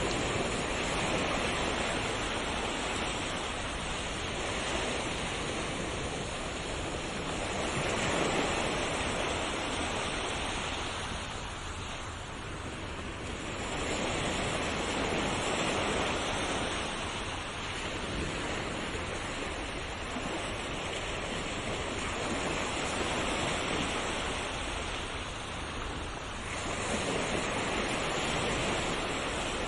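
Ocean waves breaking and washing on a shore, a continuous surf hiss that swells and recedes every few seconds.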